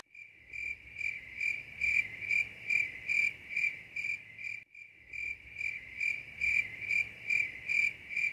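A cricket chirping steadily, about two high chirps a second, with a brief break about halfway through.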